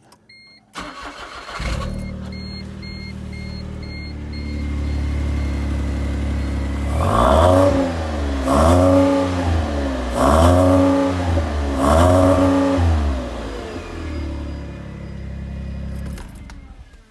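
A 2012 Smart ForTwo's 1.0-litre three-cylinder engine, breathing through an aftermarket Solo Performance stainless steel exhaust, is started and settles to a steady idle. It is then revved four times, each rev rising and falling, before dropping back to idle and being switched off near the end. A few thin high beeps sound in the first seconds.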